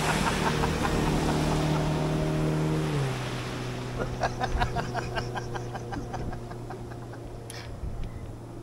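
A passing motorboat's engine drones steadily, then drops in pitch about three seconds in as it goes by and fades. A rapid run of clicks follows a second later.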